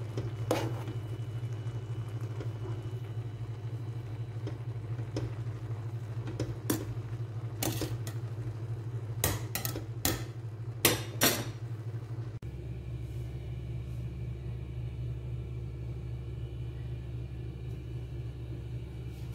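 Plastic slotted spatula scraping and knocking against a stainless steel pot while fluffing cooked rice, a scattering of sharp clicks and taps, most of them in the middle, over a steady low hum.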